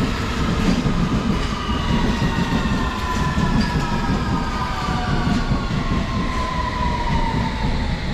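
London Underground District line S7 Stock train running into the station with a steady rumble and a motor whine of several tones that slowly falls in pitch as the train slows.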